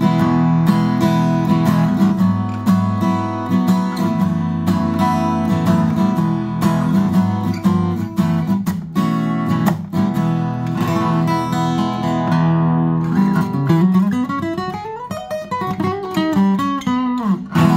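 A 1970s Tokai Gakki Cat's Eyes CE-400 dreadnought acoustic guitar, solid spruce top with Indian rosewood back and sides, strummed in steady chords. Near the end a line of notes climbs and then comes back down.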